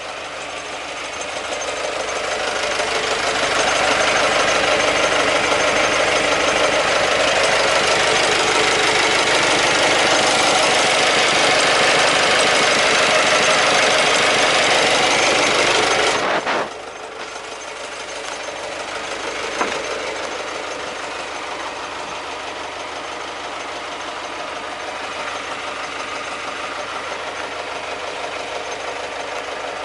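Nissan Cabstar 45.13's 2.5-litre YD25DDTi four-cylinder diesel engine idling, heard close up near the engine. It grows louder over the first few seconds, then drops abruptly about sixteen seconds in and runs on more quietly and steadily.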